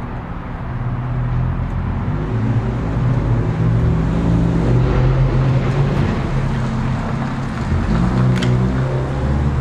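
Transformer-type soldering gun humming steadily with its trigger held, the hum briefly dipping and changing about eight seconds in. The gun's tip is not heating up, which is typical of the tip oxidizing under its clamps so that too little current reaches it.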